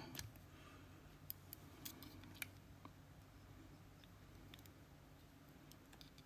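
Near silence, with a few faint light clicks in the first couple of seconds: small lock pins and springs being handled.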